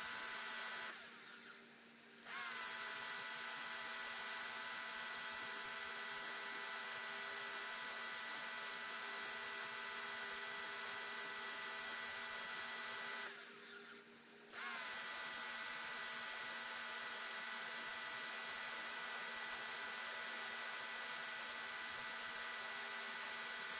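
Electric pressure washer running, a steady motor-and-pump whine over the hiss of the water spray. Twice it cuts out for about a second and then starts up again.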